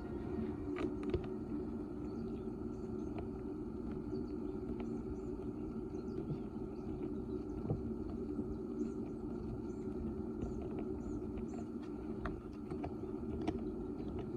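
Steady low rumble, with a few faint clicks and small birds chirping faintly now and then.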